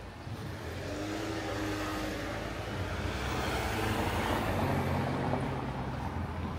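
A road vehicle passing by: its noise swells for about four seconds, then fades.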